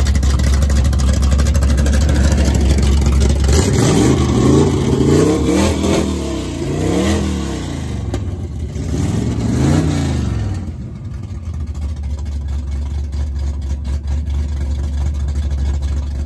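Car engine idling, then revved in several quick blips of the throttle in the middle, each rising and falling in pitch, before it settles back to idle.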